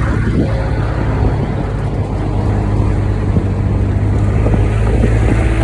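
Kubota utility vehicle's engine running steadily while driving, with wind noise on the microphone.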